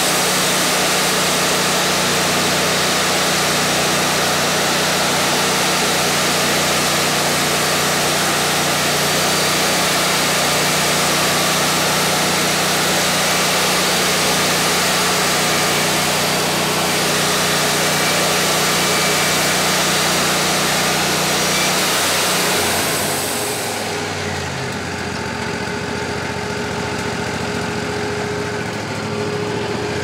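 Wood-Mizer LT40 band sawmill running, its band blade sawing lengthwise through a poplar cant with a steady engine note under a dense hiss. About 23 seconds in the cut ends: the hiss drops away and the engine settles to a lower, steadier running note.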